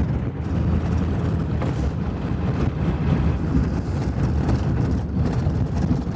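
A 1996 Ford F350 with a 7.3 L Powerstroke diesel driving on a gravel road, heard from inside the cab: a steady low rumble of the engine and tyres on gravel.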